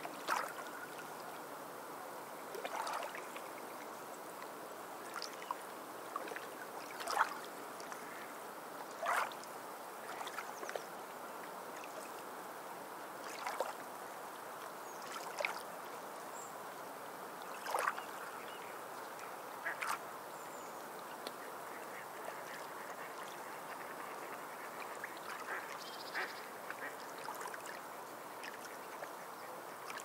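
Sea birds giving short quacking calls every couple of seconds, fewer after about twenty seconds in, over a steady wash of small waves on a pebble beach.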